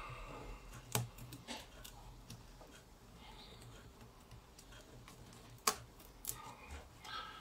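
Hands handling a coiled 8 mm braided rope and the white band around it: soft rustling with a few sharp clicks and taps, the loudest about a second in and near six seconds in.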